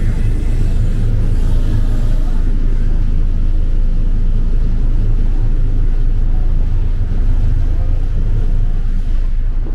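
River tourist boat's engine idling with a loud, steady low rumble while passengers board.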